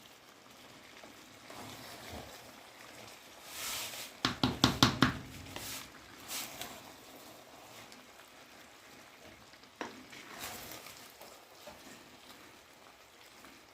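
Pot of chicken biryani simmering on low heat with a faint steady hiss. About four seconds in comes a quick run of sharp metal knocks and clatter on the pot, followed by a few lighter clicks later.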